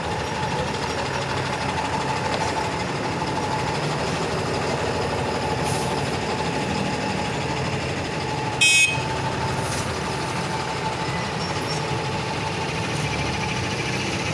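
Heavy truck engines idling steadily with street noise, and a short high-pitched beep about eight and a half seconds in.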